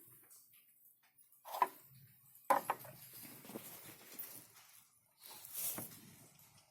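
Handling noises: a couple of small knocks or clicks, with soft rustling and scraping between them.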